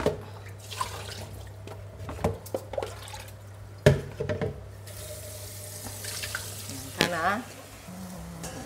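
Water splashing and pouring in a stainless steel kitchen sink as blanched pork ribs are rinsed in a plastic bowl, with several knocks of the bowl against the sink and one loud knock about four seconds in.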